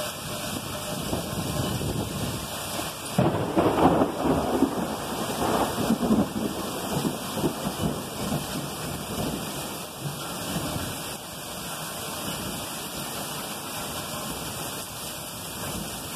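Heavy rain pouring steadily, streaming off a roof edge. About three seconds in, a thunderclap breaks out and rumbles in two swells for several seconds before fading back into the rain.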